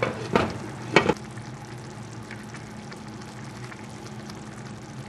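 Tomato sauce simmering and sizzling in a skillet, with two sharp knocks in the first second and a steady low hum underneath.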